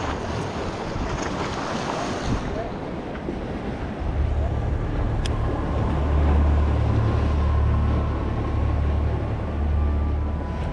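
Waves washing against jetty rocks, with wind on the microphone. About four seconds in, a steady low rumble starts and carries on, and a single sharp click comes a little after.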